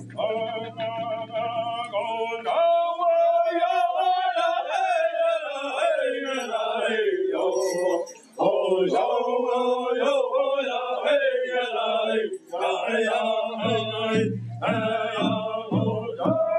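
A group of men chanting a song in unison in Apache crown dance style, with the melody falling and rising and two short breaks between phrases, to the beat of water drums. It sounds band-limited, like a video recording played over a web call.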